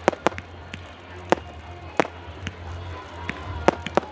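Fireworks going off: a string of sharp, irregular bangs and cracks, about ten in four seconds, as crackling stars burst and fall, over a steady low hum.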